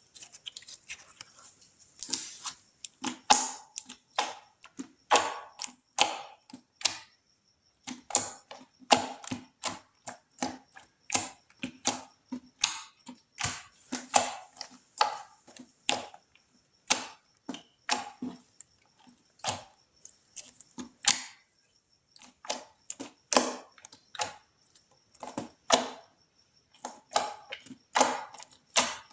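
Slime being squeezed and poked by hand, making a run of sharp, wet clicking and popping crackles, roughly one or two clusters a second, with a couple of short pauses.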